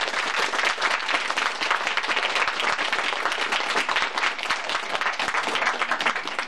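Small audience of a few dozen people applauding, many hands clapping steadily, stopping near the end.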